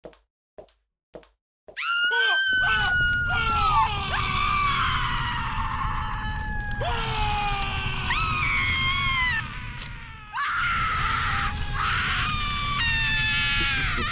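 A few evenly spaced footsteps, then from about two seconds in many voices screaming and wailing in torment over a steady low rumble, with a short dip near ten seconds.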